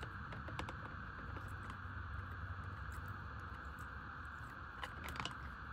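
Ratcheting wire crimper working on a connector: a few faint clicks, then a short quick run of clicks about five seconds in, over a steady low background hiss.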